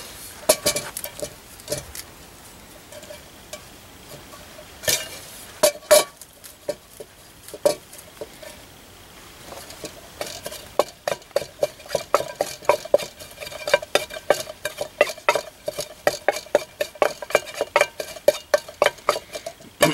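A carved wooden stick grinding and tapping fresh mint leaves in a stainless steel cup, the cup ringing at each stroke. Scattered strokes at first, then from about halfway a quick, steady rhythm of about three or four strokes a second.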